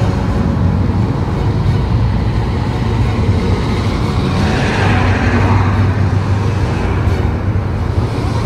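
Road traffic noise from cars on the street, swelling about halfway through as a vehicle goes by.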